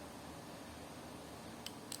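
Steady low hum and hiss, with two faint clicks near the end from Lego plastic parts being handled.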